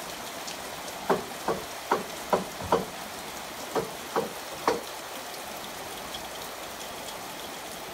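Heavy rain falling steadily on a pond and a roof, an even hiss. Over the first five seconds a run of about eight short, loud pitched blips sounds above it.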